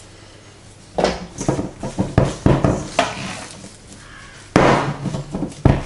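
A spatula scraping and slapping thick, sticky rye sourdough dough against the sides of a stainless steel mixing bowl. Irregular strokes come in a quick run from about a second in, then two louder strokes near the end.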